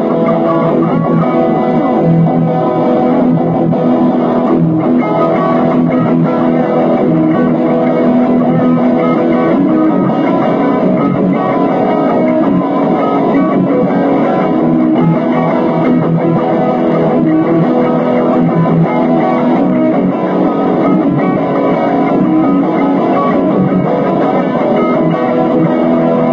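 Epiphone electric guitar played continuously: a picked melodic passage with sustained notes and no pauses.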